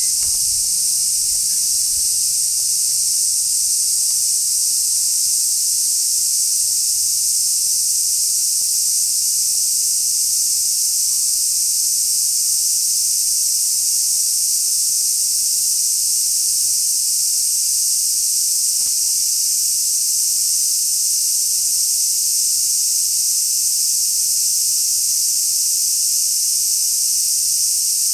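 Large brown cicadas (aburazemi) singing together in a continuous sizzling drone that holds steady without a break.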